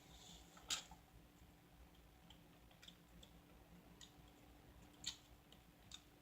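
Near silence: room tone with a few faint, short clicks, the loudest about two-thirds of a second in and two more near the end.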